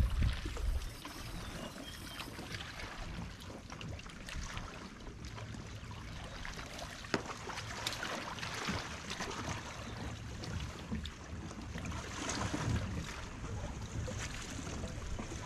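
Wind buffeting the microphone in the first second, then a steady hiss of wind and water around a fishing kayak, with scattered small clicks and one sharper click about seven seconds in.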